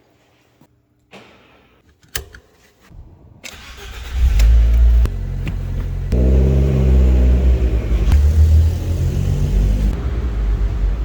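A few sharp clicks, then a motor vehicle engine starting about three and a half seconds in and running loudly, its pitch rising and falling as it revs.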